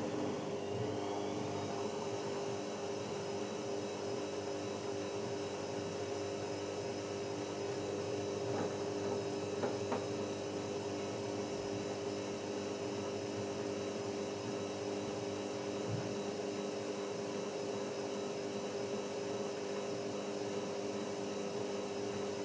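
Electrolux TimeSaver washing machine running with a steady motor hum. It starts just before and climbs in pitch over the first couple of seconds, then runs level, with a few faint clicks about ten seconds in.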